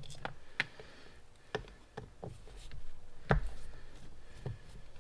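Scattered light clicks and taps of hand tools and small parts being handled while a carburetor is taken apart at the bench, with one sharper knock about three seconds in.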